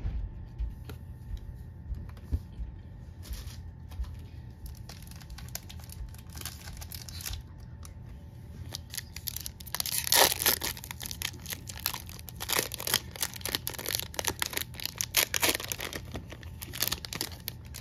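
Baseball cards handled and set down on a tabletop with light clicks, then, from about halfway in, a Topps baseball card pack's foil wrapper crinkling and being torn open, louder and crackling.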